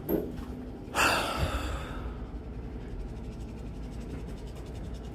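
A person sighing close to the microphone about a second in: one sudden breathy exhale that fades away, over a low steady hum.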